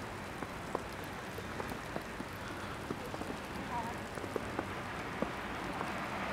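Wet snow falling, a steady hiss with scattered light ticks of drops landing.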